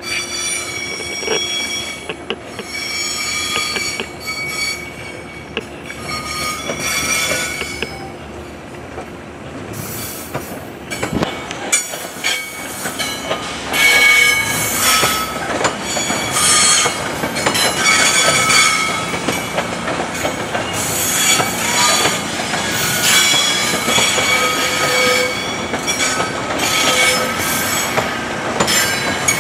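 Metro-North passenger train rolling past, its wheels squealing in high tones that come and go over and over, with a few knocks from the wheels over the track.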